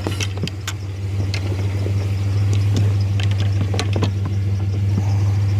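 Golf clubs clicking and knocking against each other as they are sorted by hand, over the steady low hum of a vehicle engine idling.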